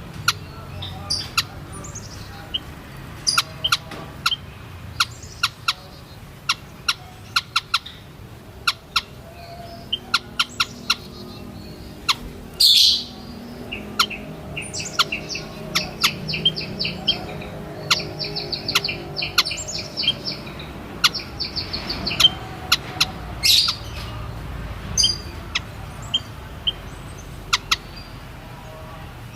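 White-headed munia calling: short, sharp high-pitched chirps at irregular intervals, with stretches of quick repeated notes around the middle.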